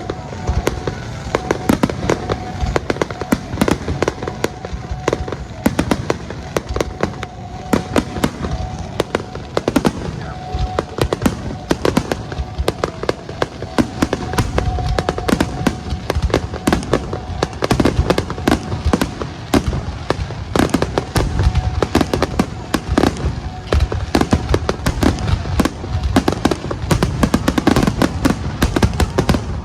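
Aerial fireworks display: a continuous barrage of shell bursts and crackling, many sharp bangs a second over a heavy rumble.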